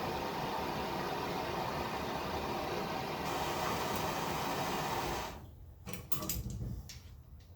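A heating tool running steadily on a crossbow bolt's field point to soften the glue holding the insert, cutting off about five seconds in. A few light clicks and handling knocks follow.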